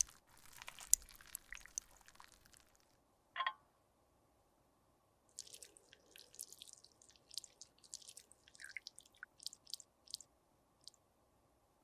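Close-miked makeup being worked by hand, giving dense small crisp crackles and clicks. A single sharper click with a short ring comes about three and a half seconds in. After a brief quiet, scattered crackles and ticks return.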